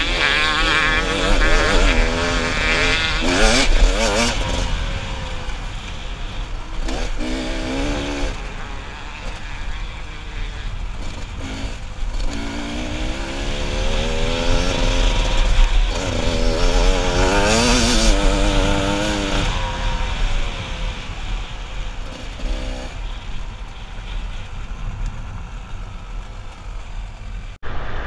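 Enduro dirt bike engine revving up and down under load as it is ridden along a dirt track, with wind rush on the microphone. Revs rise and fall several times, and the sound breaks off sharply just before the end.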